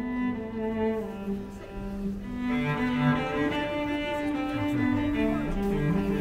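Slow cello music: long held bowed notes, several sounding together, moving to a new pitch every second or so.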